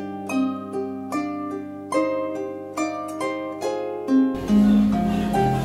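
Harp background music: a run of plucked notes, each ringing and fading. About four seconds in, a low steady background noise joins it.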